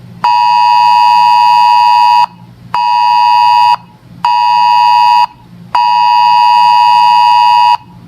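Weather alert radio sounding its alarm tone for an incoming warning: a loud, steady tone of about 1 kHz, switched on and off: two seconds on, then one second, one second, two seconds, with half-second gaps between, starting again near the end.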